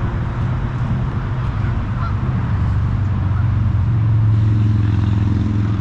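Steady low engine drone, growing louder about four seconds in.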